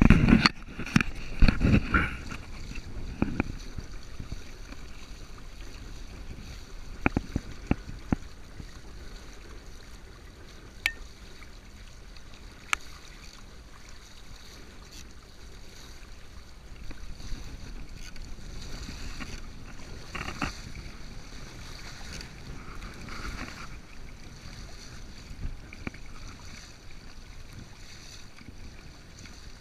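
Water rushing and splashing along a sailing kayak's hull and its underinflated outrigger float as it pushes upwind through chop, throwing spray, with some wind on the microphone. The splashing is loudest in the first two or three seconds, and a few sharp knocks sound through the rest.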